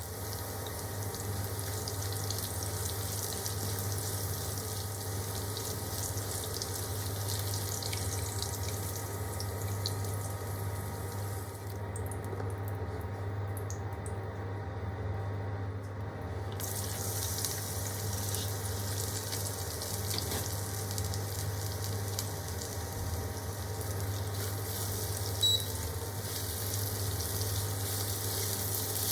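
Vegetables sizzling and crackling in a hot pan, with a steady low hum underneath. The crackle drops away for a few seconds midway.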